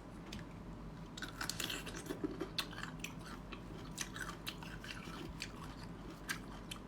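A person chewing and biting crunchy food close to the microphone, with irregular crisp crunches.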